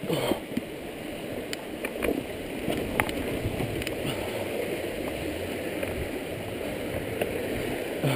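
Mountain bike riding down a rocky trail and over a wooden boardwalk: steady tyre rumble and frame rattle, with a few sharp clicks and knocks.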